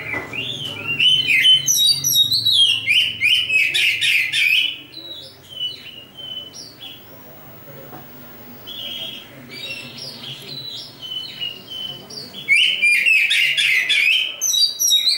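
Oriental magpie-robin of the black-breasted local kind (kacer dada hitam) singing: fast phrases of varied whistles and chattering notes, loud over the first five seconds, sparser and quieter in the middle, then loud again near the end.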